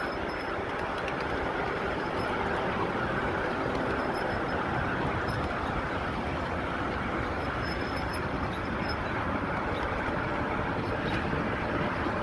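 A 1/8-scale ride-on miniature train running along its track, heard from a car riding on it: a steady running noise of wheels on rails, with a few faint ticks.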